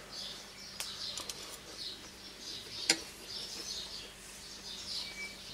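Small birds chirping over and over in the background, with a few light clicks; the sharpest, about three seconds in, is a metal spoon set down against a ceramic bowl.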